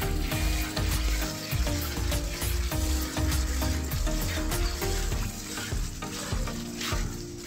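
Hand-milking of a water buffalo: rhythmic hissing squirts of milk jetting into a steel pail, frothing as it fills. Background music with a steady beat plays underneath.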